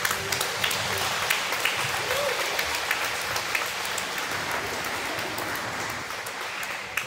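A large audience of schoolchildren and adults clapping, a dense patter of many hands that dies away near the end.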